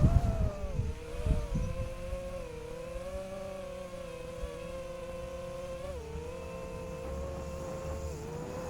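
Brushless motors and propellers of a 5-inch FPV quadcopter whining at a pitch that rises and falls with the throttle. Low wind buffeting is heard in the first second or so, and the pitch dips about six seconds in.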